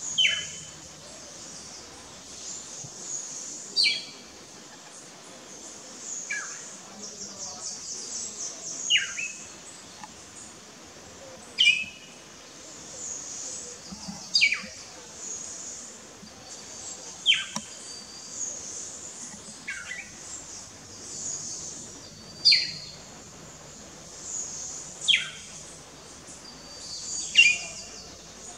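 A bird calling: one short, clear note that falls steeply in pitch, repeated evenly about every three seconds, over a steady high insect hiss.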